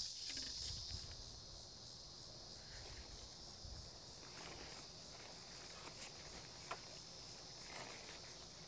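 Faint, steady, high-pitched insect chorus, with scattered small clicks and rustles from handling plants and pots.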